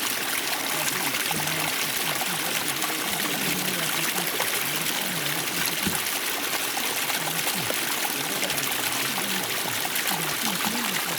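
Water splashing and trickling in a steady, even rush, with low voices talking faintly underneath.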